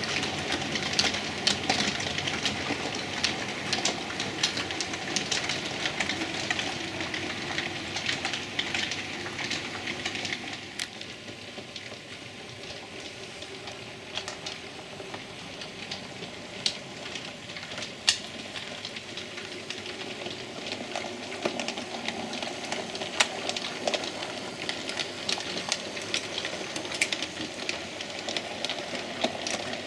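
Model railway trains running along the layout's track: a steady rolling rumble with scattered sharp clicks of wheels on rail. It fades for a stretch in the middle and then comes up again.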